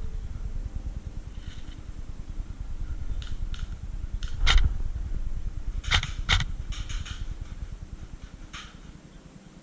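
Airsoft guns firing: a handful of sharp cracks, the loudest about four and a half and six seconds in, with two shots close together. A steady low rumble of wind on the microphone runs underneath.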